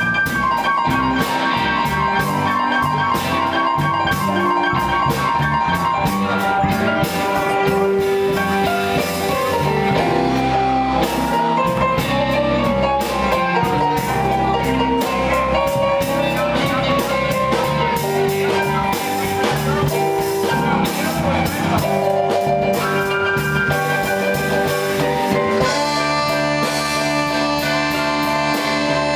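Live blues band playing a slow blues: electric guitar over a drum kit, the guitar's notes bending and sustaining.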